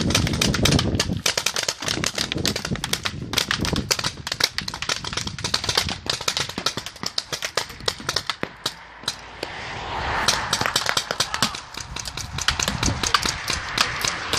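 Paintball markers firing in rapid, overlapping volleys, many sharp pops a second.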